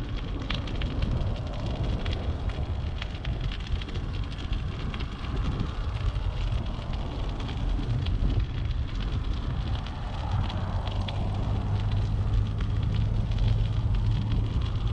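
Bicycle tyres crackling over a gritty, snow-dusted concrete sidewalk, with wind rumbling on the camera microphone. The rumble grows steadier about two-thirds of the way in.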